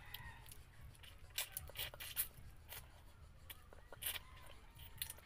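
Close-up mouth sounds of eating rice and chicken curry by hand: wet lip smacks and chewing clicks, a handful of short, sharp smacks spaced unevenly.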